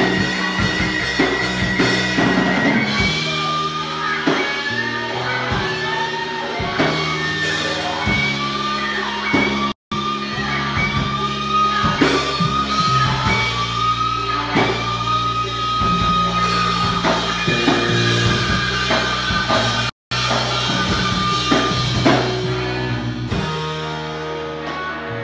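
Live rock band playing: an electric guitar solo of long, sustained, bending notes over held bass notes and drums. The sound cuts out for an instant about ten seconds in and again about twenty seconds in.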